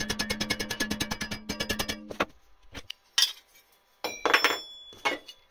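Steel bench vise being unwound, with a fast, even rattle for about two seconds. Then come a few sharp metal clinks as the bent steel blade strip and its steel support pieces are lifted out of the jaws.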